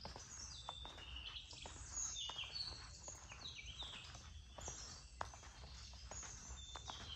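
Birds calling, many short high whistled notes overlapping and stepping down in pitch, with soft footsteps on sandy ground.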